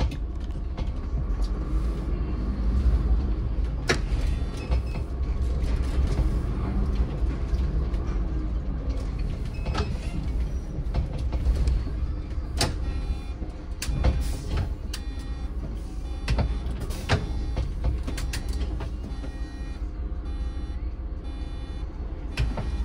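Inside a moving city bus: steady low engine and road rumble, with occasional sharp clicks and knocks from the bus body.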